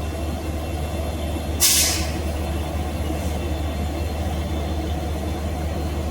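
Train at the station running with a steady low rumble. A little over a second and a half in comes a short, loud hiss of air from the air brakes, then a fainter hiss about three seconds in.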